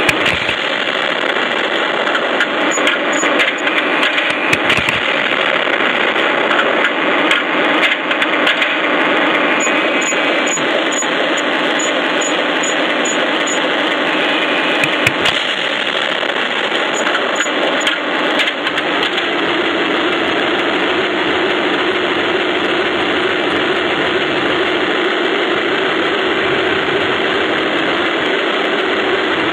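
1:16 radio-controlled Tiger I model tank driving, heard from a camera on the tank itself: steady mechanical running noise of its drive and tracks, with a few sharp knocks. About two-thirds of the way through, the sound settles into a steadier, lower hum.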